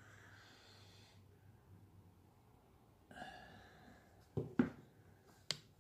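Quiet breathing, then three sharp clicks or knocks, two close together about four and a half seconds in and one near the end, as a small plastic bottle is picked up and handled.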